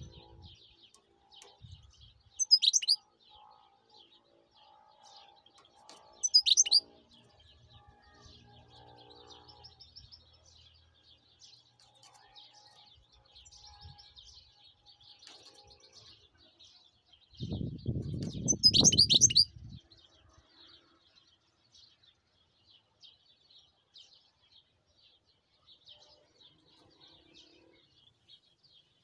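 European goldfinch twittering steadily, with three loud, sharp, high calls: two in the first seconds and one past the middle. A low rumble sounds with the last call.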